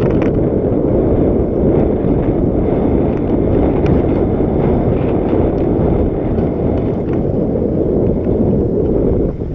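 Mountain bike rolling along a packed dirt trail: steady wind buffeting on the bike-mounted camera's microphone over the rumble of the tyres, with a few faint clicks and rattles.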